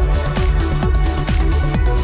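Electronic trance music with a steady kick-drum beat, about two beats a second, under sustained synth tones.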